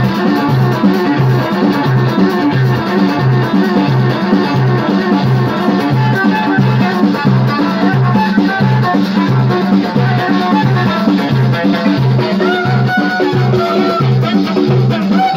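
Live band music with an electronic keyboard playing a melody over a steady, evenly repeating low beat.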